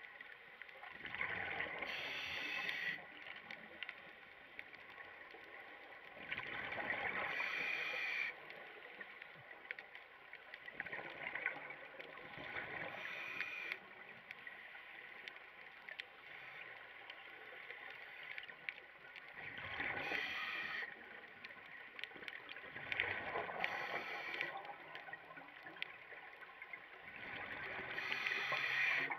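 Scuba diver breathing through a regulator underwater: exhaled air bubbles rushing out in bursts of a second or two, about every four to five seconds.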